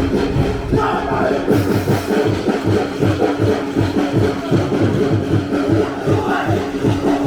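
Pacific Island drumming for a stage dance performance, a steady pounding beat of about three strokes a second, with steady held tones above it.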